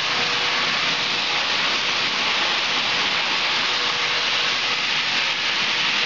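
Dog food processing line running steadily, with a rotating stainless steel coating drum: an even hiss with a faint steady hum underneath.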